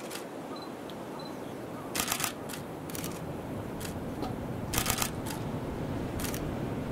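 Camera shutters firing: two short rapid bursts of continuous shooting, about two seconds in and about five seconds in, with single shutter clicks between them, over steady background noise.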